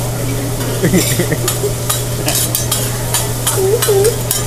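Metal spatulas scraping and clicking on a steel hibachi flat-top griddle as fried rice is stirred and chopped, in quick irregular strokes over the sizzle of the rice frying. A steady low hum runs underneath.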